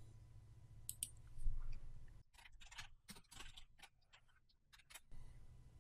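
Faint computer keyboard typing: a run of irregular, quick keystroke clicks.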